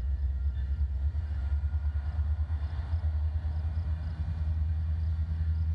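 Low, steady rumble of an approaching Union Pacific freight train's diesel locomotives.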